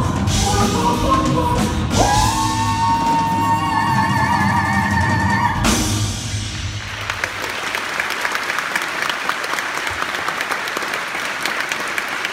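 Live band of piano, guitars and drum kit with a female singer ending a song: she holds one long final note while the band plays under it, the music stops about six seconds in, and the audience breaks into applause.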